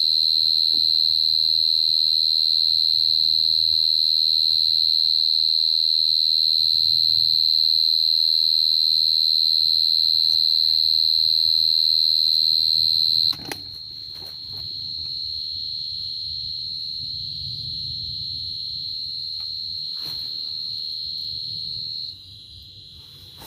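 Short-tailed cricket (dế cơm) calling close by in one loud, steady, high trill, the call a male gives from the mouth of its burrow at night. About thirteen seconds in it suddenly drops much fainter and carries on, dropping again near the end, with light rustling and a few clicks underneath.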